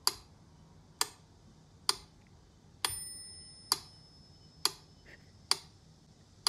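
Pyramid-shaped mechanical metronome ticking at a steady slow tempo, about one sharp tick every 0.9 seconds, with its bell ringing on one beat about three seconds in.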